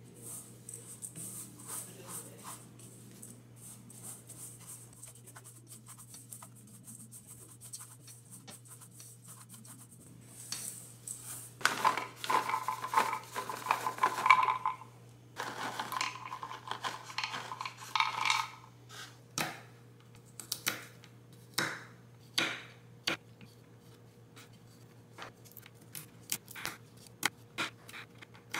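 A silicone spatula stirs dry oats, flour and cinnamon in a stainless steel bowl, a faint scraping. About twelve seconds in, walnuts are tipped from a container onto a wooden cutting board in two loud spells of clatter. From about nineteen seconds a small knife chops nuts on the board in separate sharp chops, about one a second.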